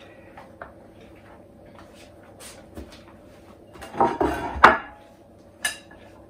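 Pie pastry, rolling pin and glass pie dish being handled on a wooden worktop: light scattered knocks and rustles, a louder run of knocks and scraping just after four seconds in, and one sharp click near the end.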